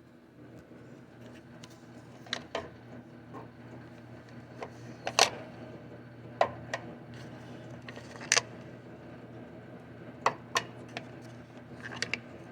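Scattered sharp clicks and knocks of small hard objects being handled, about eight in all, over a steady low hum.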